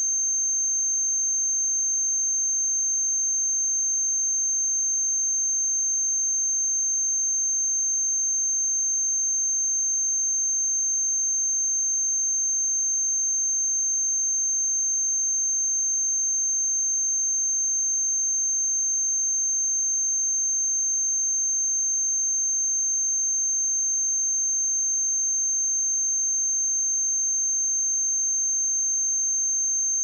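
A pure 6327 Hz sine-wave test tone: one steady, unbroken high-pitched whistle at constant loudness.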